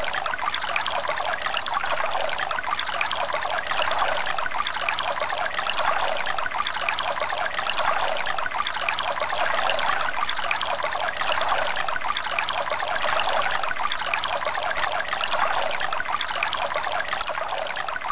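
Thin streams of water pouring into a leaking jar and dribbling out of it, a steady, unbroken trickle and splash.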